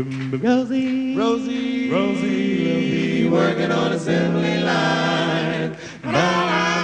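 Male a cappella vocal group singing close harmony: voices slide up into long held chords over a steady bass part, briefly drop out near six seconds, then come back in.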